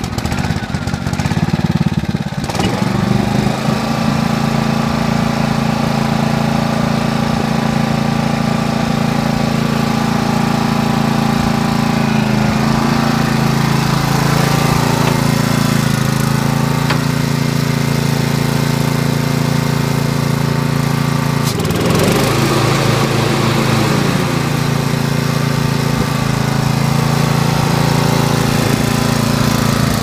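Exmark 36-inch commercial walk-behind mower's engine running steadily just after starting. Its pitch settles over the first couple of seconds and dips briefly about 22 seconds in.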